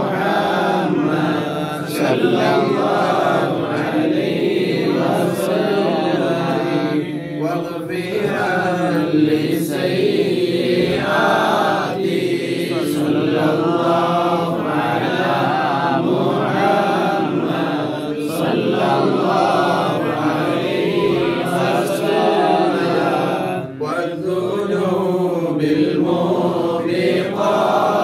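A group of men chanting Arabic devotional verses together, unaccompanied, in a steady unbroken flow.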